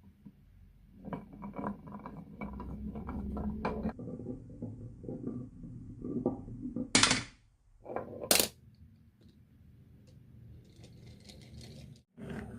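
Marbles rolling and clattering down a marble run, a quick rattle of many small clicks over a low rolling rumble. Two loud sharp clacks follow about seven and eight seconds in.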